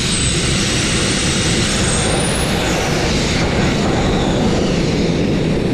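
Wet abrasive-blasting nozzle firing fine crushed glass, a steady loud hiss. A thin high whistle glides upward and dies away about two seconds in. The flow is faltering, which the operator puts down to a small blockage in the line.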